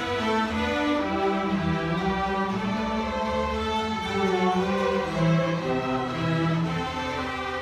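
Middle school string orchestra playing, violins bowing long held notes over lower strings, the chords changing every second or two.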